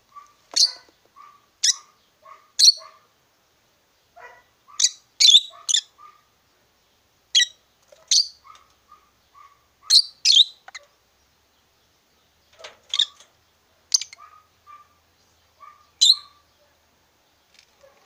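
Rosy-faced lovebirds calling: sharp, high chirps, one at a time, every second or two, some in quick pairs, with softer, lower short twitters between them.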